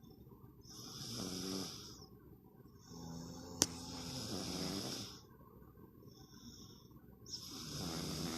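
A father and his baby snoring: three long snoring breaths, each a second or two, with a fainter breath between the last two. There is a sharp click about three and a half seconds in.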